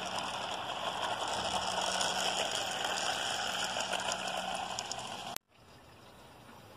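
HO-scale model freight cars rolling over track and a girder bridge, a steady clattering rattle of small wheels on rail. It cuts off suddenly about five seconds in and gives way to a much quieter steady rush.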